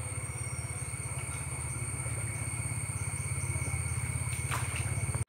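A low, rapidly pulsing rumble like an engine running, with steady high-pitched tones above it. It grows slightly louder, then cuts off suddenly at the end.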